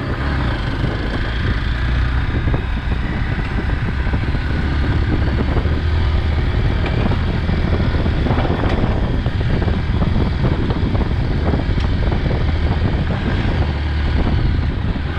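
Hero XPulse 200's single-cylinder engine running as the motorcycle is ridden, with wind rushing over the microphone.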